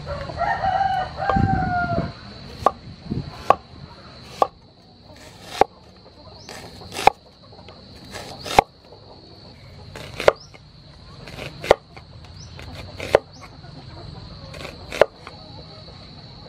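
A rooster crows once at the start. Then a cleaver slices through an onion onto a wooden cutting board: about ten sharp knocks, roughly one every second and a half.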